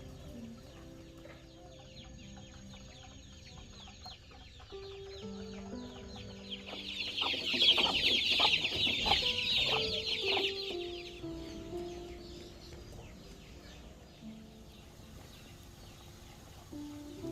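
A burst of chicken calls in the middle, with a few sharp knocks among them, over soft background music.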